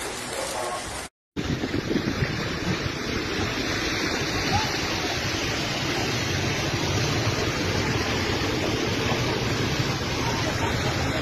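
Heavy rain and hail falling, a dense steady hiss. It cuts out for a moment about a second in, then returns louder with a low rumble underneath.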